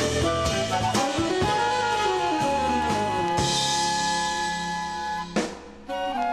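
Big-band jazz from a vinyl record: the horn section (saxophones and brass) holds long chords over drums and bass. There is a cymbal wash in the middle, then a sharp drum hit about five seconds in, after which the band briefly drops back.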